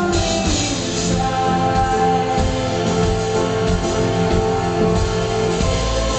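Live band music at a concert: held instrumental notes layered over a steady low bass and drums, at an even loudness.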